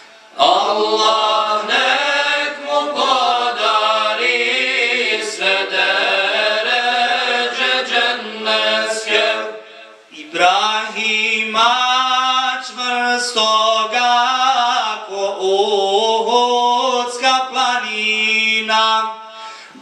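Male voices singing an ilahija, a Bosnian Islamic devotional hymn, a cappella: a wavering, ornamented melody over a steady low note held underneath, with a short break for breath about ten seconds in.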